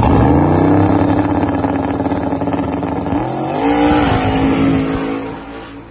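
Twin-turbo Chevrolet Silverado 1500 4x4 engine revving up. The pitch climbs sharply at the start and holds, dips and climbs again about three seconds in, then the sound fades away near the end.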